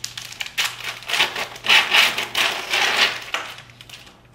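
Paper-and-plastic sterilization pouch being peeled open and the metal spike slid out: crackly rustling and rubbing of the pouch, loudest in the middle.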